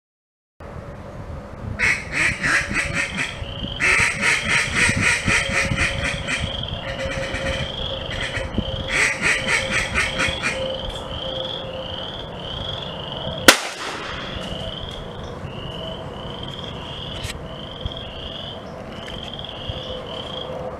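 Duck calls quacked in four quick bursts, then a single loud gunshot with a short echo about two-thirds through, as in retriever training when a mark is called and shot. A high chirp repeats steadily, about twice a second, underneath.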